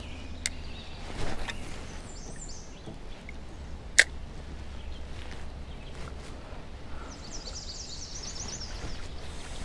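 Handling of a spinning rod and reel in a kayak: a few small clicks and knocks, the sharpest a single click about four seconds in, over a low steady rumble. A songbird chirps briefly twice, a quick run of high chirps near the end.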